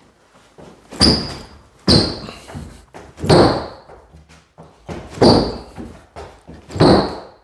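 Five heavy, booming thuds on a boarded OSB floor, each with a short ring as it dies away, spaced irregularly a second or two apart.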